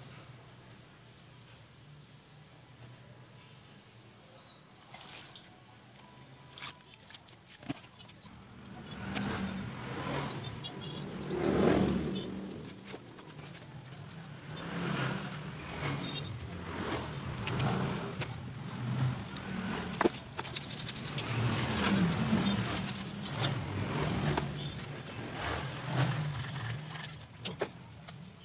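Small birds chirp faintly at the start. About eight seconds in, a running engine comes in, its level rising and falling, with scattered clicks and rustles over it.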